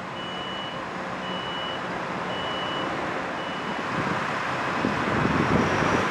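A vehicle's reversing alarm beeping about once a second, each beep about half a second long, stopping about three and a half seconds in. Under it is a steady rumble of vehicle noise that grows louder near the end.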